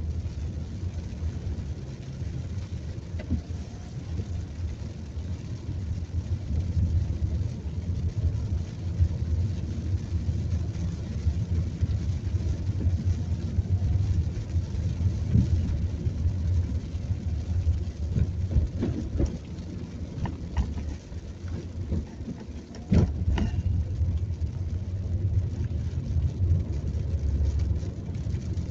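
Car cabin noise while driving in light rain: a steady low rumble of engine and tyres on the wet road, with a few short knocks and a sharper thump about four-fifths of the way through.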